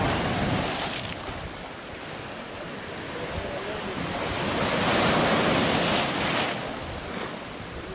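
Sea surf breaking and washing up a sandy beach against shore rocks, with one wave breaking louder from about four to six and a half seconds in.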